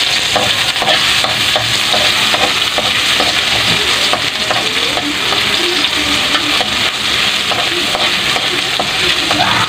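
Sliced ginger and garlic sizzling in hot oil in a wok, stirred with a spatula that scrapes and taps the pan about twice a second.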